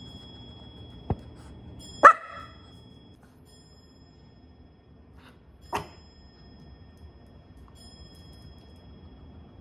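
A small dog barks twice: one sharp, loud bark about two seconds in and a softer one near six seconds, with a faint click about a second in.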